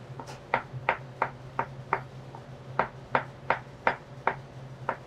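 Chef's knife slicing button mushrooms on a plastic cutting board: a run of knife taps about three a second, with a short pause near the middle. A low steady hum runs underneath.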